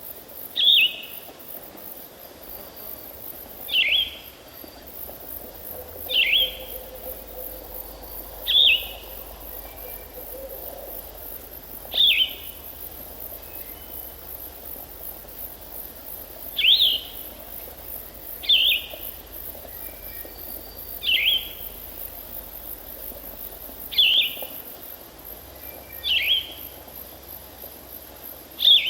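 A bird repeats a single short, sharp, downward-sweeping call about every two to three seconds, around a dozen times. Under it runs a steady high-pitched insect trilling, like crickets.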